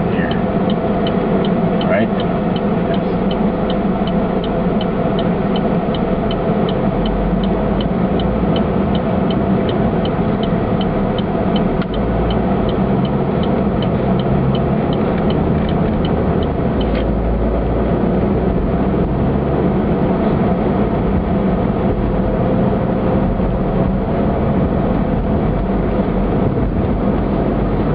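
Steady engine and road noise inside a car, with the turn signal ticking evenly for a right turn; the ticking stops about 17 seconds in as the signal cancels after the turn.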